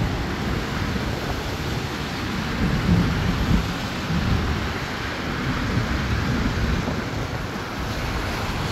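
Thunderstorm: a steady hiss of heavy rain over a low rumble, swelling briefly twice about three seconds in.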